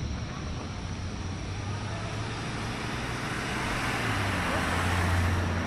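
A car driving past slowly: its engine hum and tyre noise swell about three and a half seconds in, are loudest near the end, then ease off.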